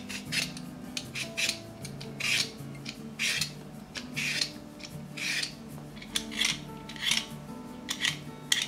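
Y-shaped vegetable peeler scraping the skin off a raw potato, a rasping stroke about once a second.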